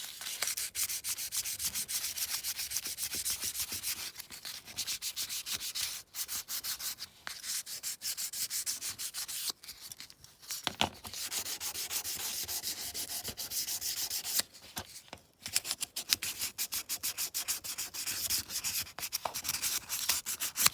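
Fine 1200-grit abrasive rubbed briskly over a die-cast metal toy car body, a dry scratchy hiss in quick back-and-forth strokes, several a second, with a few short pauses: fine polishing of the metal before painting.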